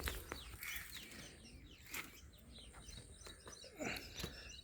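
Small birds chirping faintly in the background, with a few brief soft knocks.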